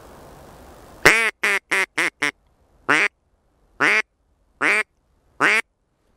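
Mallard duck call (манок) blown close by: a quick run of five short quacks, then four slower, longer quacks about a second apart, the calling used to bring ducks in to the decoys.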